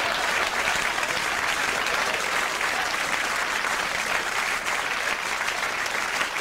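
Audience applauding, a steady clapping that holds without a break.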